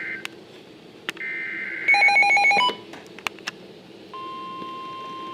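Emergency Alert System weather alert starting up: the buzzy warbling bursts of the SAME data header, then a short run of loud, rapid electronic beeps about two seconds in, a few clicks, and from about four seconds in the single steady 1050 Hz warning alarm tone of the National Weather Service broadcast.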